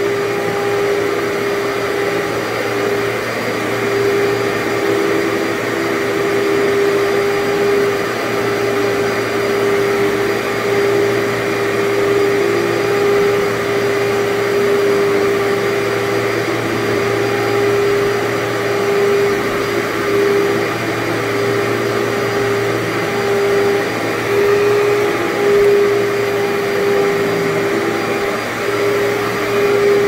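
Workhorse commercial upright vacuum cleaner running steadily as it is pushed over carpet, its motor giving a constant hum and whine while it pulls up dry soil.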